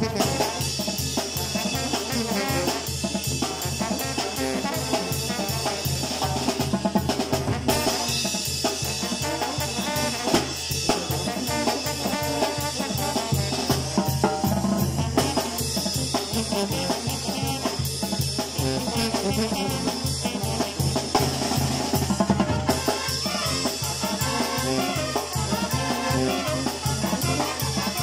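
Mexican banda playing: trombones and trumpets over chrome-shelled drums keeping a steady beat, with sustained low bass notes underneath.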